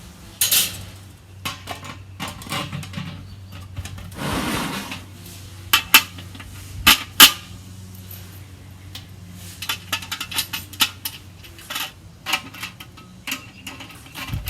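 Metal clinks and clicks of nuts and a wrench against the steel lid of a charcoal kettle grill while the heat shield and lid bracket are bolted on. There is a scrape about four seconds in, a few sharp, loud clicks around six to seven seconds in, and then a run of lighter clicks.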